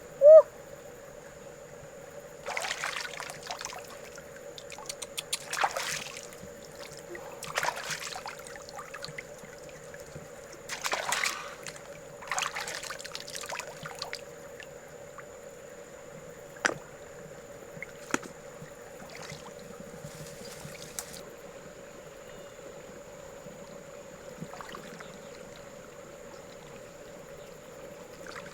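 Shallow river water splashing and sloshing in several irregular bursts, with two sharp clicks in the second half, over a steady faint hum.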